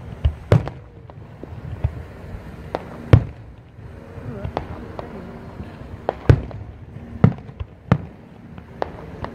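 Aerial firework shells bursting overhead: about a dozen sharp bangs at irregular intervals, the loudest about three seconds in and again around six seconds in, over a low rumble of more distant bursts.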